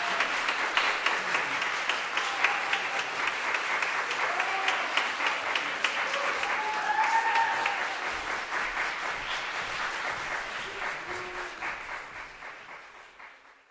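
Audience applauding, dense and steady, with a few brief shouts of cheering mixed in. The applause dies away toward the end.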